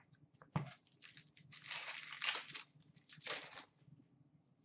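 Foil trading-card pack wrappers crinkling as hockey card packs are handled and opened by hand, in a few short bursts with one longer crinkle about two seconds in.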